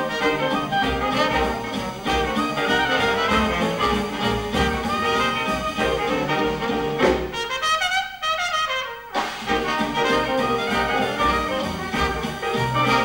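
Live Dixieland jazz band playing together: trumpet, trombone, clarinet and tenor sax over piano, guitar, double bass and drums. About seven seconds in, the band drops out for roughly two seconds while a single horn plays a break alone, then the full ensemble comes back in.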